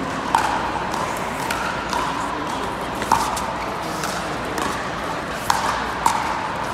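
Pickleball rally: about six sharp, irregularly spaced pops of paddles striking the hard plastic ball, each with a brief ringing tail, over the steady hum of a large indoor hall.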